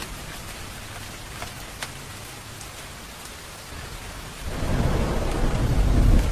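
Steady rain falling, with scattered individual drops. About four and a half seconds in, a roll of thunder swells up, loudest near the end.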